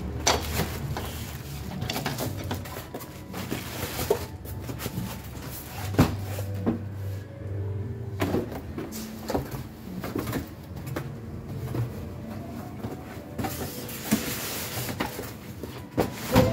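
Packing noises: a plastic bag around a portable electronic drum kit rustling under the hands, with repeated knocks and scrapes as styrofoam end caps and a cardboard box are handled and fitted over it.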